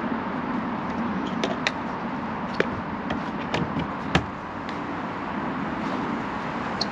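Several sharp clicks and knocks of an EV charging cable's plug being handled and pushed into a wall-mounted charge point socket, the loudest about four seconds in, over a steady hum of background traffic.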